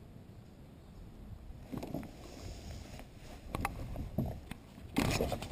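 Light knocks and handling noises in a kayak as gear is moved about, with a louder rustling burst near the end.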